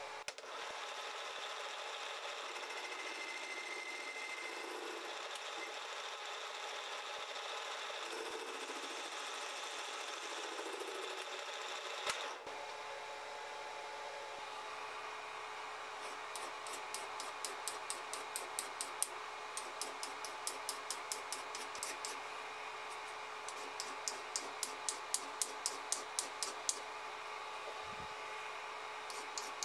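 Metal lathe running as a carbide-insert tool turns a rough metal disc held in a three-jaw chuck: a steady machine hum with a sharp click about twelve seconds in, then runs of sharp, regular ticks, several a second, through most of the second half.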